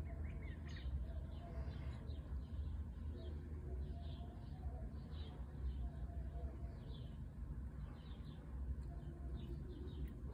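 Small songbirds chirping, short high calls repeating several times a second, over a steady low rumble.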